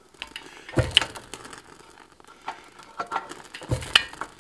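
Hand-operated fly press driving a chisel into a hot iron bar: two heavy metallic clunks about three seconds apart, with smaller clicks of the tooling between them. Excess punch lube is burning off the hot bar.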